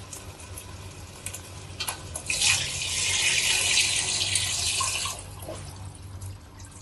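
Water poured in a stream from an aluminium vessel into a pot of thick masala, splashing steadily from about two seconds in for some three seconds, then stopping. This is the cooking water being added for the pulao before the rice goes in.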